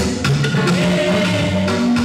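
Upbeat gospel worship music: a woman sings through a handheld microphone over loud backing music with a steady bass line.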